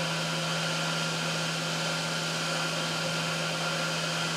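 Haas UMC 750 SS five-axis CNC mill cutting aluminum with a 3/8-inch end mill under flood coolant. A steady, unchanging hum with a constant whine on top of it, over an even hiss of coolant spray.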